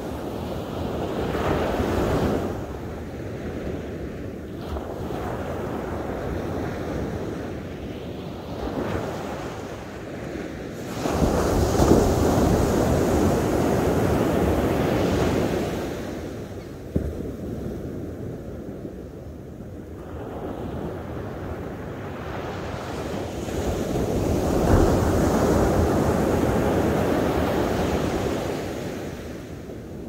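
Ocean surf breaking and washing up a sandy beach, swelling and fading in long surges. The biggest breaks come about eleven seconds in and again around twenty-four seconds in.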